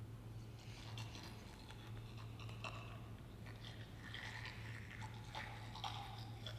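Wet mouth sounds, irregular clicks and smacks like chewing and biting, over a steady low hum.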